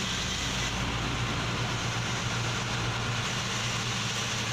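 Truck engine running with a steady low hum and road noise, heard from inside the cab of the moving truck.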